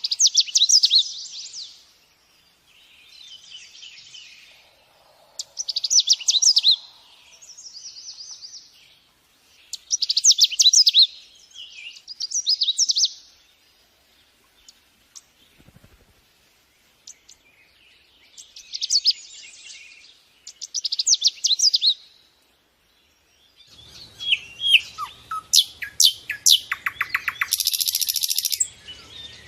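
A songbird singing: repeated phrases of quick, high notes, each about two seconds long with short pauses between them. From about three-quarters of the way in, the song turns denser and busier, with rapid trills over a faint low hum.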